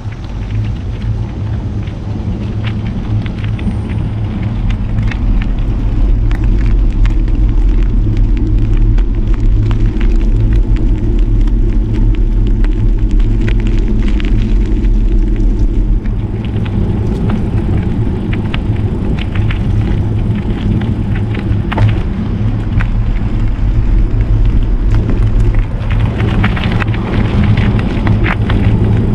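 Wind buffeting the microphone while riding a bicycle, a steady low rumble with tyre noise and scattered small clicks and rattles. It grows louder a few seconds in.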